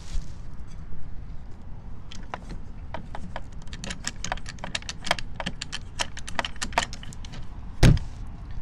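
Quick, irregular clicking and rattling of a boat deck hatch's plastic latch knob and hinge hardware being worked by hand, followed by one louder thump near the end.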